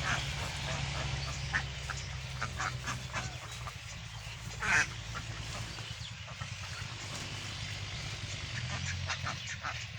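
A flock of Khaki Campbell ducks quacking, with many short overlapping calls and one louder call about halfway through, over a steady low hum.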